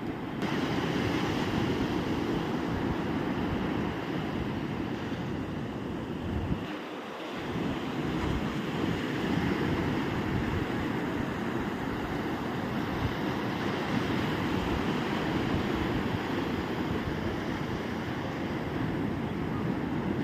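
Ocean surf washing continuously onto the beach, with wind rumbling on the microphone that drops out briefly about seven seconds in.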